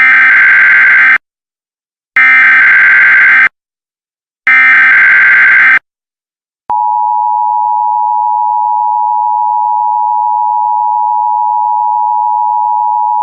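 Emergency Alert System header: three buzzy, screeching data bursts of about a second each, then the steady two-tone EAS attention signal, which starts abruptly a little before halfway and holds unchanged. Together they mark the start of a new emergency alert.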